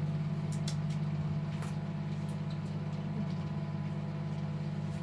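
A steady low mechanical hum, like a motor or engine running, with a few faint clicks over it.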